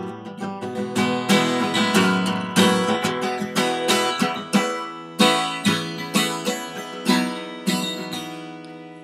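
Acoustic guitar strummed in chords, an instrumental passage with no singing; the strumming fades out towards the end.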